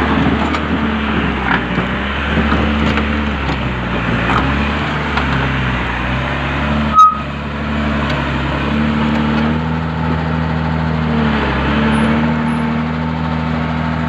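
Homemade backhoe's engine running at a raised idle, held up by a handbrake lever rigged as a hand throttle so it no longer stalls on the move; its pitch steps up and down a few times. One sharp knock about halfway through.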